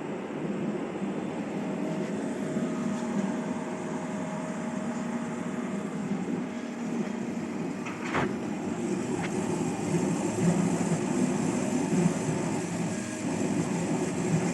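KAMACH 6090 CO2 laser cutter running a test job: a steady mechanical hum and whir, with a couple of sharp clicks about eight and nine seconds in.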